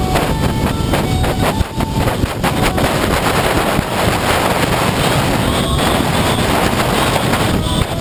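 Wind rushing over the microphone of a motorcycle-mounted camera at riding speed, loud and steady, with the motorcycle's engine running underneath.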